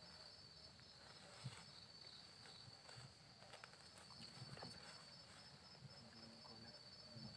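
Near silence: faint night insects with a steady high buzz, and soft rustles and light taps as a sack is spread and smoothed on the ground.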